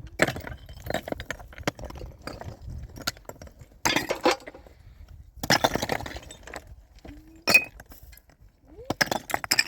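Hard objects clinking, knocking and scraping as they are handled, with a loud single knock about halfway through and a quick run of knocks near the end.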